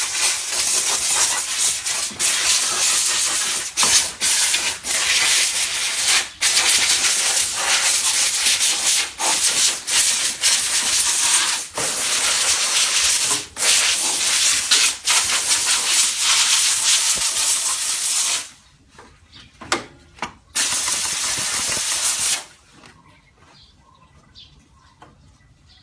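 Handheld steam cleaner with a pointed nozzle spraying steam in a loud, steady hiss with brief breaks. It cuts off about eighteen seconds in, gives one more burst of about two seconds, then stops.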